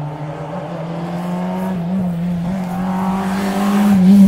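Rally car engine running at high revs, holding a steady note that rises slightly in pitch and grows louder toward the end as the car approaches.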